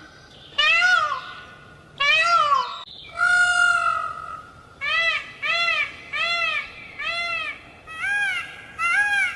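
A series of loud animal calls, each a short cry that rises and then falls in pitch. Around three seconds in comes one longer, level call, and from about five seconds in the calls come quicker, about two a second.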